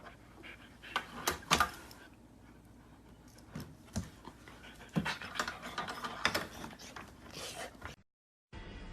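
A dog panting in short, irregular bursts.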